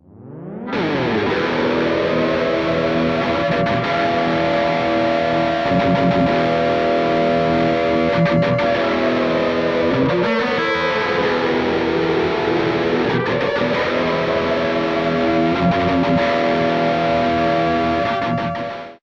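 Distorted electric guitar holding a sustained chord that swells in at the start. About ten seconds in, the top note bends slowly down and then back up, like a whammy-bar dip, and the sound stops abruptly near the end.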